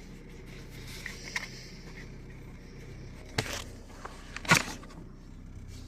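A few clicks and knocks from small hard carry items being handled, two sharper ones about three and a half and four and a half seconds in, the second the loudest, over a low steady hum.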